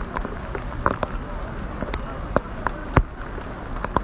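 Background murmur of a crowd walking and talking in rain, with scattered sharp taps, one louder tap about three seconds in.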